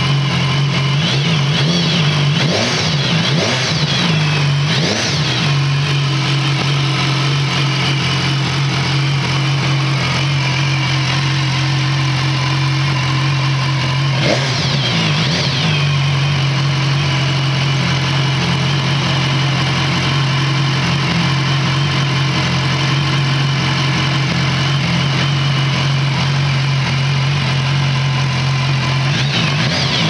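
BMW S 1000 XR's 999 cc inline-four, on its stock exhaust, idling steadily and blipped by the throttle a few times: two or three quick revs in the first five seconds, another about halfway through, and one more at the end.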